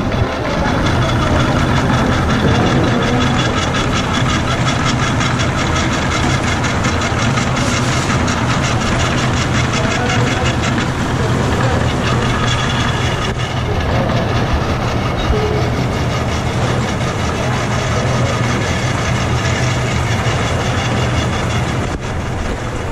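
Food-processing machinery running steadily: a loud, even hum with a fast, regular rhythm that does not let up.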